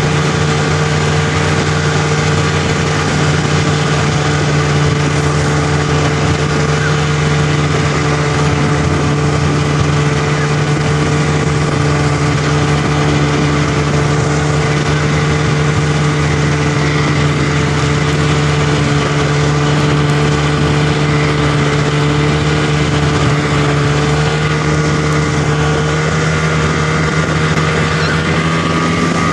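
Snowmobile engine running steadily at one speed, heard from the machine itself, with an even hiss of track and wind over it.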